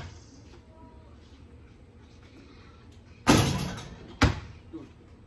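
A basketball bounces once on concrete. About three seconds later a shot hits the portable hoop with a loud bang and a ringing rattle, followed about a second later by a smaller thud.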